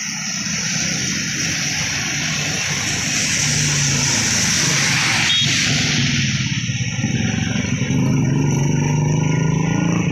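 Road traffic passing on wet asphalt: a steady hiss of tyres on the wet road under the running engines of trucks, cars and motorcycles, growing louder in the second half as vehicles come nearer.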